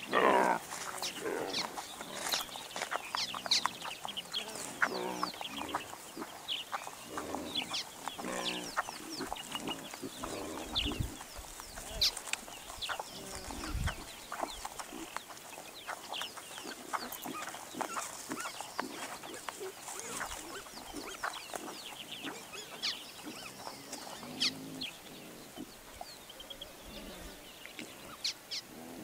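Warthog piglets grunting and squealing as they jostle to suckle, with one loud falling squeal right at the start and bouts of short pulsed grunts. High chirps and calls of bush birds run throughout.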